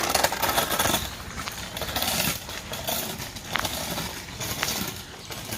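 Child's Space Scooter rolling on pavement: an even rushing rattle that drops back after about a second, with a few light clicks.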